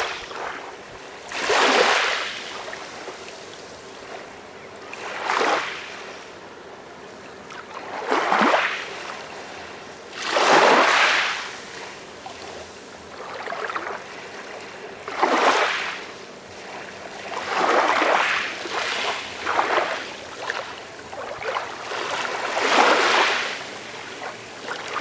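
Calm sea waves breaking gently and washing in, about eight soft swells of rushing surf a few seconds apart, with a quieter hiss of water between them.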